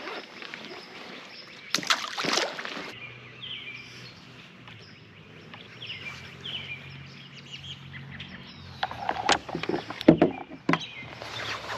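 Knocks and bumps on a fishing boat, a run of them near the end with the loudest about ten seconds in, over birds chirping and a low steady hum. A short rush of noise comes about two seconds in.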